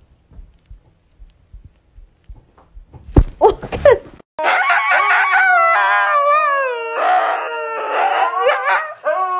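A husky howling in long, wavering notes, starting about four seconds in. Before it come soft thumps and a couple of loud knocks.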